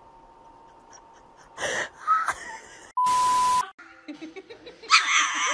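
A couple of short noises, then a flat electronic bleep lasting about half a second, three seconds in. Near the end a young puppy gives a thin wailing howl.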